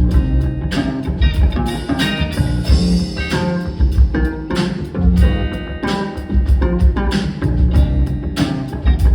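Live band playing an instrumental guitar fusion piece: guitar melody over a drum kit keeping a steady beat.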